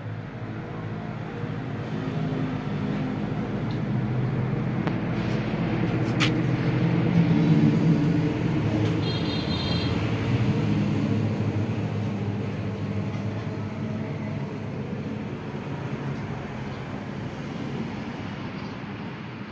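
A motor vehicle's engine passing by, growing louder to a peak about eight seconds in and then slowly fading, with a single sharp click about six seconds in.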